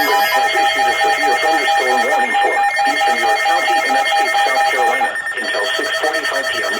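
Emergency Alert System attention tone from a weather-radio alert: a steady electronic alarm tone that cuts off about five seconds in.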